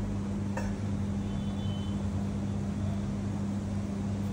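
Steady low machine hum, with one faint click about half a second in.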